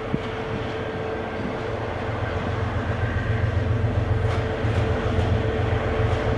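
Train on the track, a low rumble growing louder over the last few seconds as it draws closer, with a steady mid-pitched tone running throughout.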